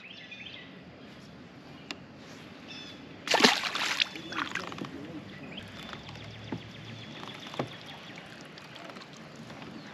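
A white bass released from a kayak splashing into the water about three seconds in, a short burst that is the loudest sound here. Faint clicks and knocks of rod and reel handling follow.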